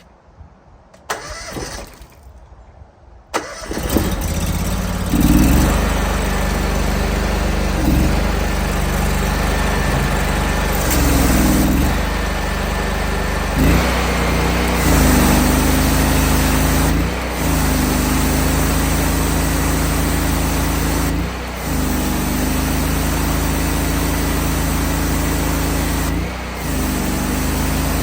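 Honda GX630 V-twin petrol engine on a pressure washer starting about three seconds in, then running steadily. Its note shifts briefly several times, every few seconds.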